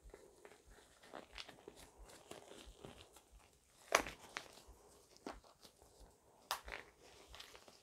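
Scattered faint clicks and taps of small plastic and metal parts being handled while a 3D printer hotend assembly is closed up, the sharpest click about four seconds in.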